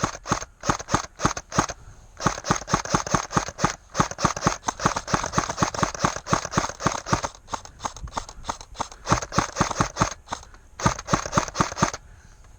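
Airsoft gun firing strings of rapid shots, about five a second, close and loud, with brief pauses between strings.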